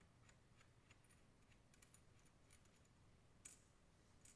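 Near silence, with faint scattered small clicks, the clearest about three and a half seconds in: a nut and star washer being fitted onto a tricycle's steering stem bolt.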